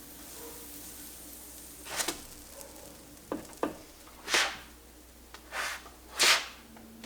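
Kitchen utensil sounds during food preparation: about six short swishing scrapes spread over a few seconds, the last one the loudest.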